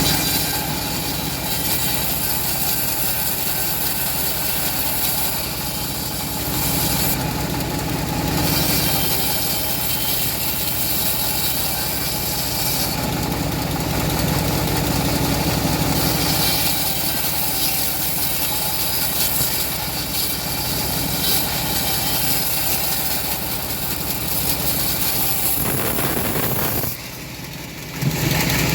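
Engine of a home-built bandsaw mill running steadily, its noise swelling and easing, with a brief drop in loudness near the end.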